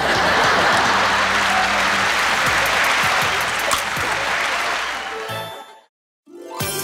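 Applause over cartoon background music with a steady bass line, fading out about six seconds in; after a brief silence a new music cue starts just before the end.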